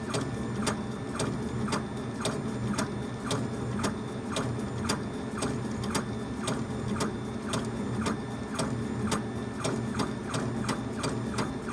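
Laser engraver's stepper motors driving the head back and forth while raster-engraving, a short whirring sweep and click on each pass, about three passes a second, over a steady low hum.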